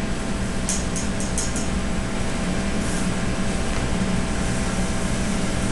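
Steady hum and rush of a commercial kitchen exhaust hood fan running, with a quick run of faint high clicks about a second in.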